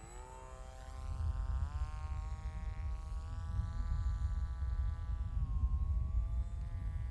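Electric motor and propeller of a Hacker HotWing 1200 flying wing (Hacker A20-50S brushless motor, APC 7x6 slow-flyer prop) buzzing in flight. Its pitch rises over the first second or so, holds, dips about five seconds in, then climbs again.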